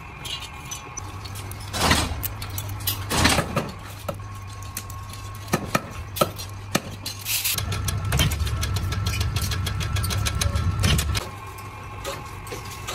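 Workshop machine noise: a steady low hum with many sharp metal knocks and clanks over it, including a few evenly spaced hammer blows on tin brush ferrules about halfway through.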